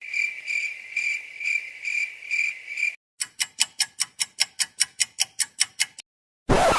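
A string of separate sound effects. First a cricket chirps in a steady pulsing rhythm, about two pulses a second. Then comes a rapid run of sharp ticks, about five a second, and then a short burst of noise near the end.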